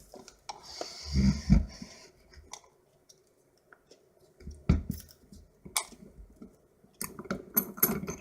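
A small Master Lock padlock and its packaging handled on a desk: a brief rustle, a few dull knocks and scattered light metallic clicks.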